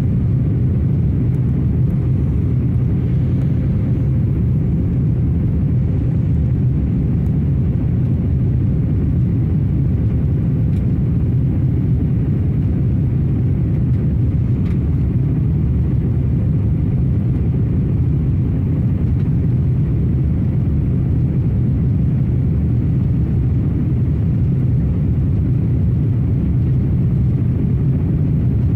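Steady low rumble of an Airbus A320 airliner's engines and airflow heard inside the cabin at a window seat, during the descent on approach to landing.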